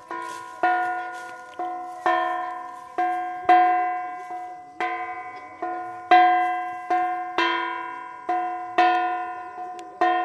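Puja bell rung by hand, about two strikes a second at an uneven pace, each strike ringing on in several clear tones that fade.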